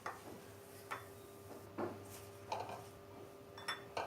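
Light, separate taps and clicks, about one a second, as fried methi muthiya are moved into a serving bowl, with a faint steady hum under them.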